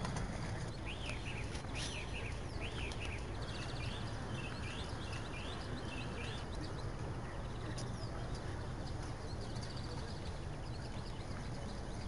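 Small songbirds chirping and twittering in quick, repeated notes, busiest in the first half, over a steady low hum of city noise.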